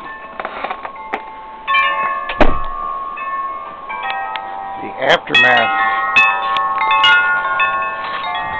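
Wind chimes ringing: many overlapping metal tones struck over and over and slowly fading, with a fuller flurry of strikes about two seconds in.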